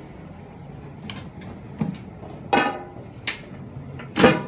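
Imasu centrifugal bathroom exhaust fan running with a steady low hum, pulling air through from the next room. Over it come about five short knocks and scuffs, the loudest near the end.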